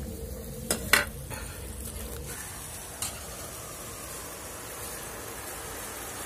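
Sugar syrup boiling and sizzling in an aluminium wok over a wood fire, a steady bubbling hiss. A few sharp clicks come in the first three seconds.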